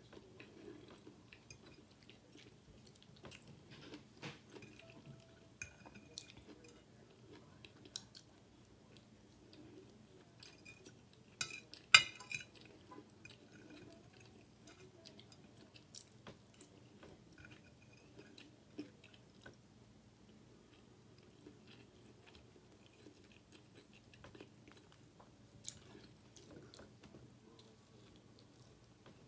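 Close-up chewing of fried chicken chunks and rice, with soft mouth sounds and scattered small clicks. A fork clinks and scrapes against the plate, loudest in a sharp cluster of clinks about twelve seconds in.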